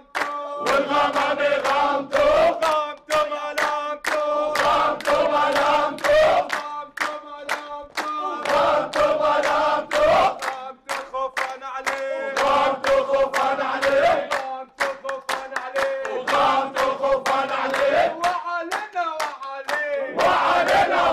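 A group of men chanting and singing together in celebration, over steady rhythmic hand-clapping.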